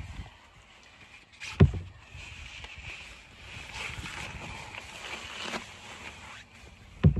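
Wet landing-net mesh rustling as it is peeled off a mirror carp on an unhooking mat, with two dull thumps of handling against the mat, one about a second and a half in and one near the end.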